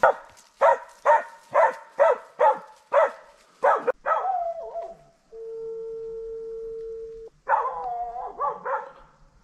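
A boar-hunting dog barking in quick succession, about two barks a second, then giving a longer drawn-out bay. A flat steady tone sounds for about two seconds in the middle, and more barking and baying follow near the end.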